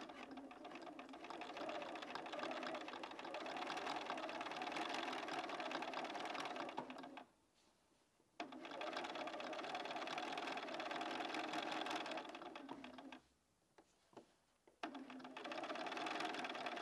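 Bernina 570 QE sewing machine stitching binding through a quilted cushion's layers, running steadily in three stretches with two short stops, about seven and about thirteen seconds in.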